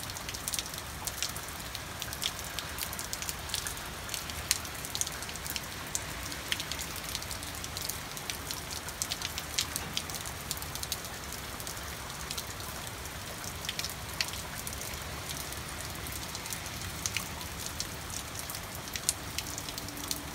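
Steady rain falling, with many sharp, close drop impacts ticking irregularly over the even hiss.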